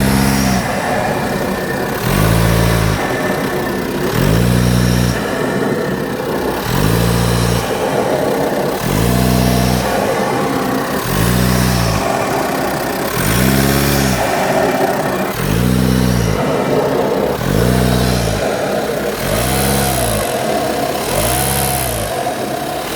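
Audi A4 8K 2.0 TDI (170 PS) four-cylinder diesel engine revved in short throttle blips about every two seconds, each rev rising and falling back. As the throttle is released it makes a noise that the owner says sounds like a leaking air filter, and it persists with the hose at the mass air flow sensor removed.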